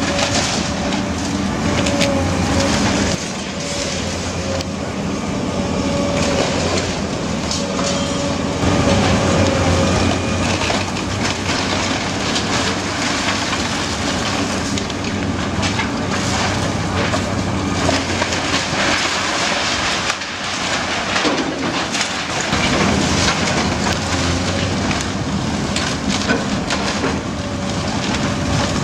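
Komatsu PC200LC hydraulic excavator's diesel engine running steadily while its bucket tears into a wood-frame house: timber and siding cracking, splintering and crashing down in many sharp cracks.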